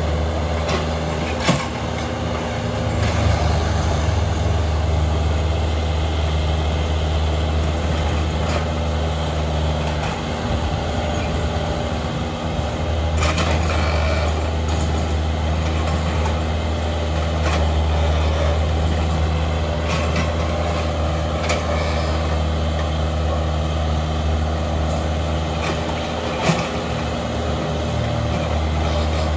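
Diesel engine of a Hyundai 55W-9A wheeled mini excavator running steadily while it digs a trench, with a few short clanks, the loudest near the end.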